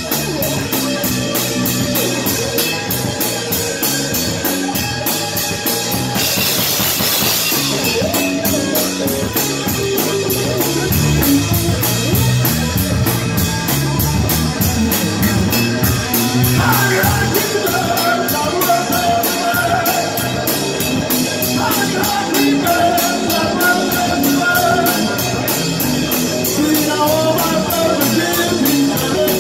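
Live rock band playing amplified electric guitar, electric bass and a drum kit.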